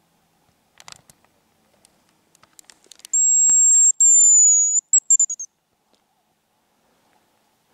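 Hazel grouse decoy whistle blown close by, imitating the male's song: a long, very high thin note, a second that falls slightly, then a few short quick notes. A few soft rustles and clicks come before it.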